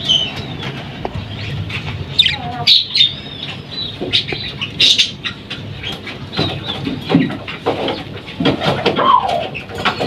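Budgerigars chirping and chattering, with many short high chirps and a couple of falling calls, over scattered clicks and knocks.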